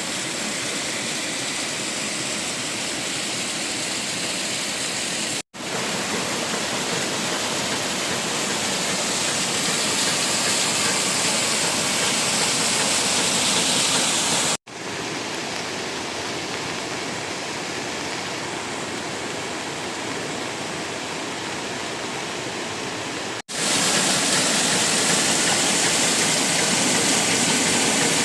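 Steady rushing of water. It breaks off abruptly three times and each time comes back at a slightly different level.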